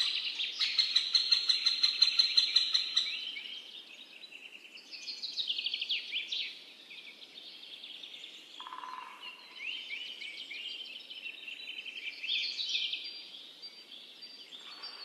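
Birdsong of quick chirps and trills, loudest in the first three seconds, cutting off abruptly at the end.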